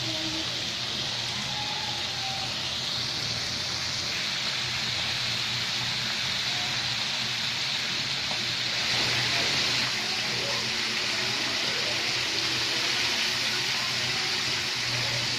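Chicken pieces deep-frying in a wide pan of hot oil: a steady, hissing sizzle of bubbling oil, a little louder from about nine seconds in.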